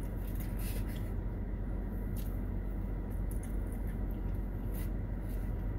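Steady low hum of a car's running engine and air-conditioning fan inside the cabin, with a few faint clicks and smacks of eating: chewing and chopsticks against a foam takeout container.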